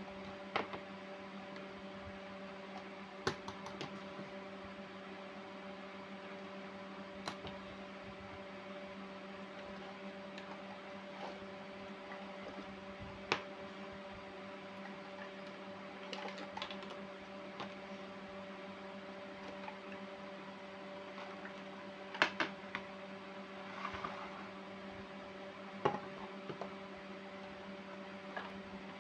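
Small plastic toy kitchen pieces set down one by one on a tabletop, giving scattered light clicks and taps every few seconds, over a steady low hum.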